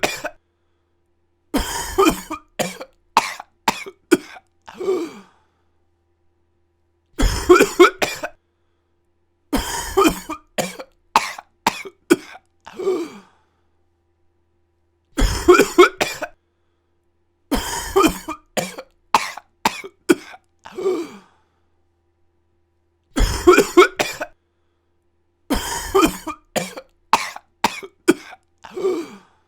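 A person coughing in repeated fits of several sharp coughs each. The fits are broken by one to two seconds of silence.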